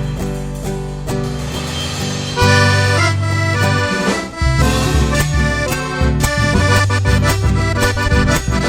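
Accordion playing the instrumental melody of a gato folk dance tune over a steady rhythmic accompaniment, without singing.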